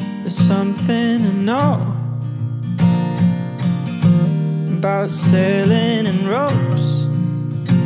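Background song with strummed acoustic guitar. A wavering melody line swoops upward twice.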